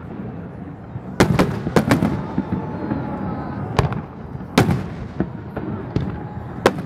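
Aerial fireworks shells bursting: about seven sharp bangs, four in quick succession about a second in, then single bangs near four seconds, near five and near the end, each trailing off in echo over a continuous rumble.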